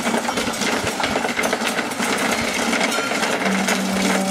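Gravel filter media pouring from a plastic bucket into a fibreglass water-filter vessel, a dense continuous rattle.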